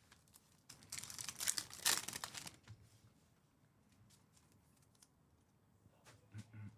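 A crinkly foil trading-card pack being torn open, a ripping, crackling sound lasting about two seconds, followed by a few faint ticks.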